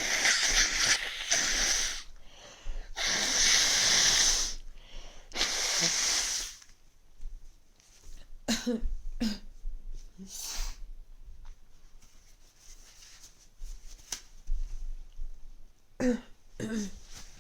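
A person with a cold blowing their nose hard three times, each blow a long hiss of one to two seconds, followed by several short, quieter sounds.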